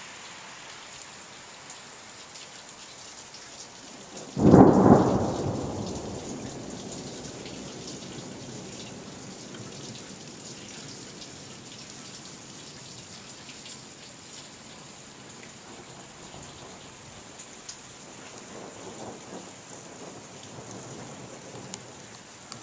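A sudden loud thunderclap about four seconds in, rumbling away over a couple of seconds, over steady rain.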